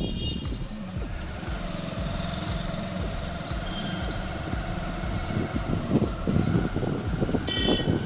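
Motor vehicle running along a street: a steady engine hum over low road rumble and wind buffeting. A short, high ringing tone sounds at the start and again near the end.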